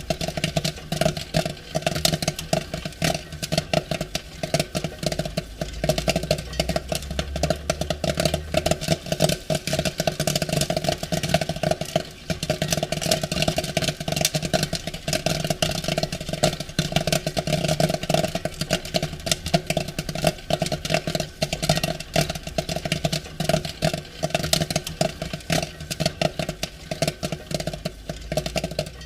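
Popcorn popping rapidly: a dense, continuous run of many sharp pops each second over a steady hum.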